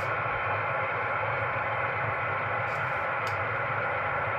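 Amateur radio receiver hissing from its speaker between transmissions: steady band static in the narrow voice passband, with a low hum underneath.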